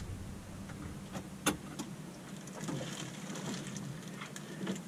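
A few light clicks and handling noises from working the newly wired car radio and its controls while powering it up for a test, the sharpest click about a second and a half in, over a low steady hum.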